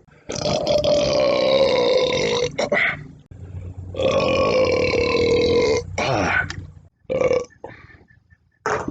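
A man belching loudly after downing a can of Budweiser beer: two long, drawn-out belches of about two seconds each that hold a steady pitch, then a few short ones.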